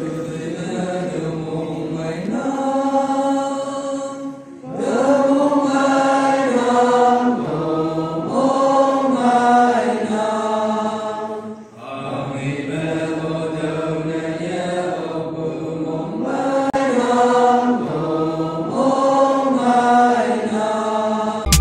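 Church congregation singing a hymn together, many voices in long sustained lines with short pauses between phrases. Right at the end it cuts abruptly into loud electronic music.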